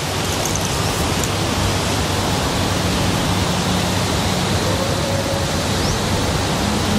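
Strong wind blowing across the microphone: a loud, steady rush with no let-up.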